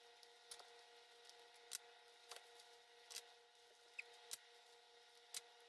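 Several faint, light clicks and taps, spaced irregularly: a metal butter knife touching the baking sheet and wire cooling rack as baked buns are lifted off. A faint steady hum lies underneath.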